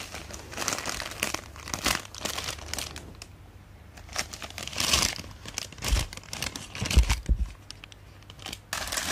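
White paper gift bag crinkling and rustling as it is unsealed and opened by hand. Near the end a few soft low thumps as its contents are tipped out onto a blanket.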